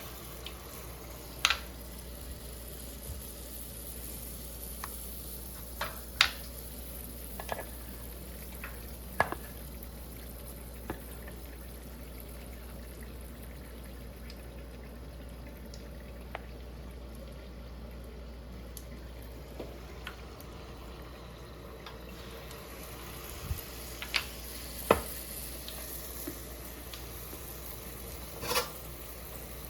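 Food sizzling steadily in a pan on the stove, with a steady low hum underneath. Scattered sharp clicks and taps of a utensil against the pan or bowl come a dozen or so times.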